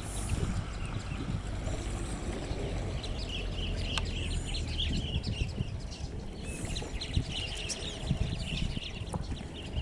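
Birds chirping rapidly and continuously from about three seconds in, over a steady low rumble.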